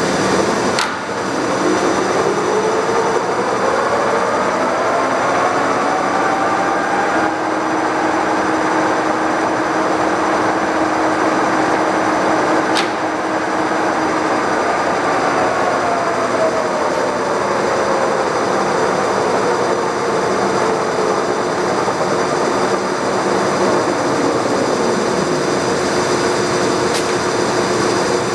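1957 Monarch Series 90 Dyna-Shift heavy-duty lathe with a 28-inch four-jaw chuck, its 40 HP drive and headstock gears running up to high speed with a rising whine. It runs steady, then winds down with a falling whine, the lead screw still engaged. Sharp clicks come about a second in and again near the middle.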